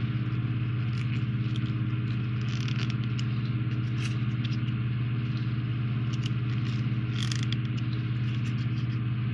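Steady low machine hum, with a few small clicks and taps from a small screwdriver and plastic model parts being handled.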